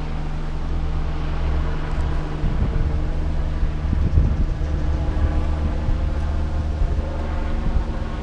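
Rescue helicopter flying in the distance, running steadily. Wind buffets the microphone from about two and a half seconds in.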